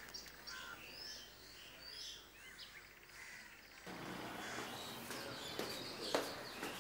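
Faint birds chirping and calling, short high chirps over a quiet outdoor background. About four seconds in, the background changes suddenly to a fuller, steady ambience with a few light knocks.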